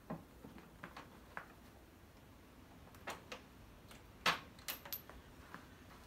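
Small metal snowblower shear pins clinking and clicking as they are handled: a scatter of light taps, with the loudest about four seconds in.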